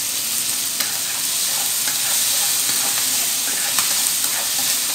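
Snail meat sizzling steadily in a nonstick frying pan as it is stir-fried with chopsticks, with a few light clicks of the chopsticks against the pan.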